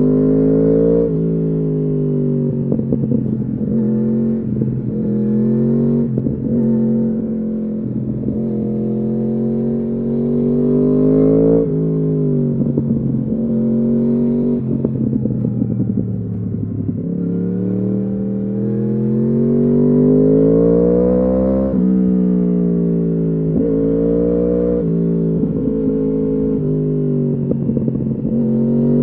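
2015 Yamaha R1's crossplane inline-four through an Akrapovič exhaust, pulling hard: its pitch climbs and then drops abruptly at each quickshifter upshift, several times over. In the middle the engine winds down and then builds again.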